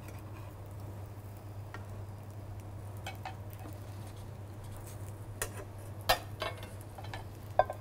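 Omelette frying with a faint sizzle in a frying pan while a metal spatula scrapes and taps against the pan several times, over a steady low hum.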